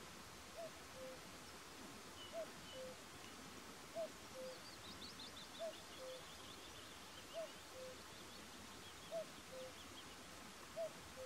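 Short-eared owl calling: a two-note call, a short upslurred note followed by a lower flat note, repeated steadily about every 1.7 seconds, seven times.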